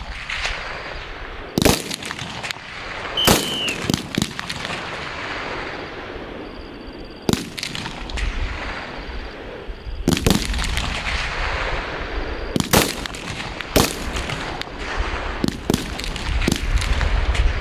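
Live-fire gunshots on a shooting range: about a dozen sharp single shots at irregular intervals, each followed by a short echo.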